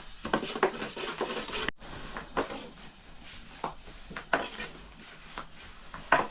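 Irregular clinks and knocks of dishes and kitchen utensils being handled.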